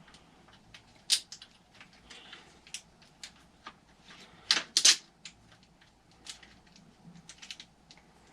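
Scattered small clicks and taps of a long mounting bolt and engine parts being handled and pushed into place on an RC truck's engine mount, with a louder clatter about four and a half seconds in.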